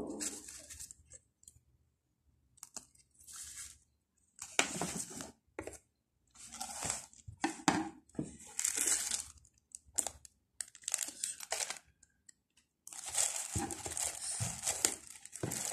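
Plastic packaging and a fabric pouch being handled: crinkling and rustling in irregular bursts with short pauses, running on without a break for the last few seconds.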